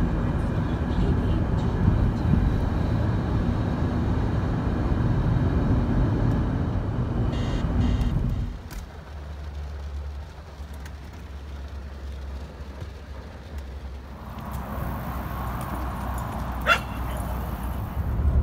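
Car road and engine noise heard from inside the cabin while driving through a road tunnel, a loud steady rumble. About eight seconds in it cuts to a much quieter low hum, and a single brief rising squeak comes near the end.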